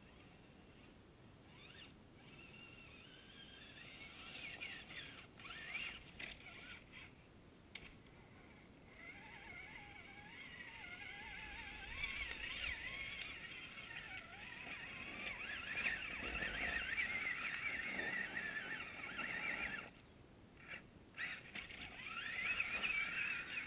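Electric motor and geared drivetrain of a Traxxas Summit RC crawler whining, the pitch wavering with throttle as it climbs over wet leaves and rocks. It is loudest while the truck is close, drops off suddenly about 20 seconds in, and comes back near the end.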